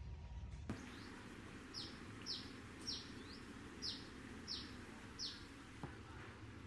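A bird calling: a run of about six short, high notes, each falling in pitch, spaced roughly half a second apart, over a steady outdoor hiss.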